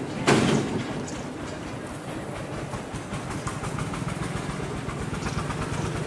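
A cast net hitting the water with a short splash about a third of a second in, followed by a steady low rumble.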